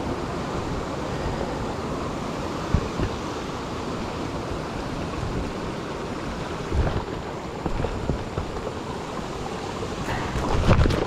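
Shallow creek water running among rocks, a steady rushing, with footsteps knocking and scraping on loose rocks a few times and more often near the end.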